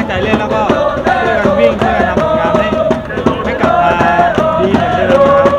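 Football supporters chanting a song together in unison, with a steady drum beat underneath.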